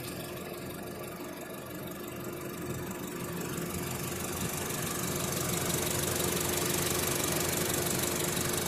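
2015 Honda Civic's four-cylinder engine idling steadily with a constant hum, growing gradually louder and hissier over the second half.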